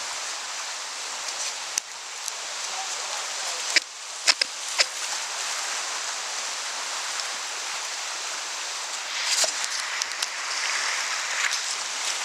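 Rushing whitewater of a river rapid, heard close up from a kayak, with sharp knocks and splashes of paddle and boat in the water, several together about four seconds in and again about nine to ten seconds in.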